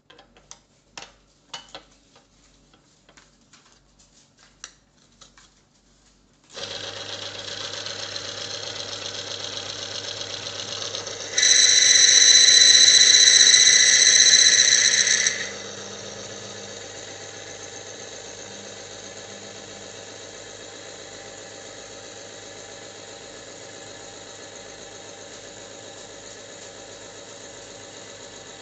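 Bench oil friction tester: a few sharp clicks and knocks as it is handled, then its small electric motor starts about six seconds in and runs with a steady hum. Soon after, a loud high-pitched squeal of metal rubbing on metal lasts about four seconds and stops suddenly, leaving the motor running steadily with the loaded lever arm on the test ring.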